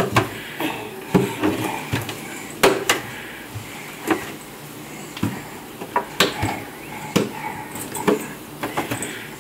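Irregular knocks and thumps, one or two a second, as a toddler's hands and feet land on the stair treads while he climbs.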